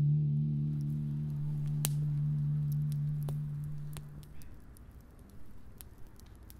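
Wood campfire crackling, with scattered sharp pops, while a low held note of soundtrack music fades out over the first four seconds.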